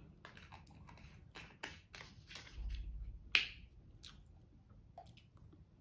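A plastic squeeze bottle of ketchup being squeezed: a low sputter ends in a sharp spurt of air about three and a half seconds in. Small clicks and taps come from the bottle and chopsticks being handled.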